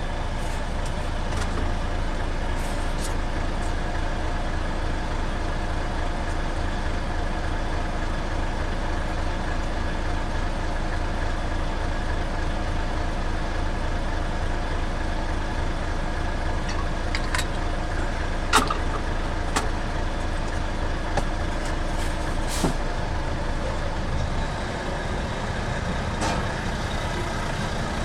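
Lorry's diesel engine idling steadily, heard inside the cab. A few short, sharp clicks and hisses come through in the second half.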